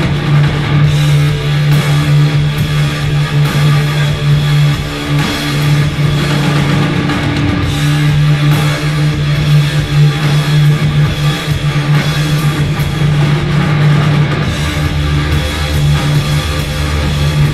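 Live, improvised drone rock: loud, sustained, distorted electric guitars holding one steady note over a busy drum kit. A deeper low note joins near the end.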